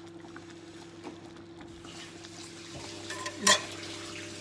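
A spoon stirring a pot of sweet potato simmering in thick coconut milk, with small scrapes and clinks. About three and a half seconds in, a utensil strikes the pot once in a sharp, loud clink. A steady low hum runs underneath.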